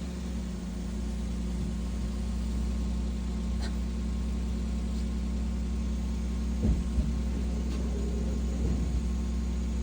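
Car engine running steadily at idle, a low even hum, with two short knocks about seven seconds in.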